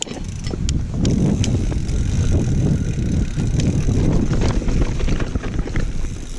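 Mountain bike descending a rough dirt trail: a steady, loud rumble of tyres over the ground, with frequent sharp rattles and clacks from the bike over bumps. The rumble gets louder about a second in as speed picks up.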